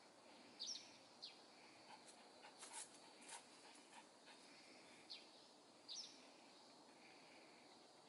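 Eurasian tree sparrows chirping: a few short, high chirps scattered across several seconds, some in quick pairs, over faint steady background noise.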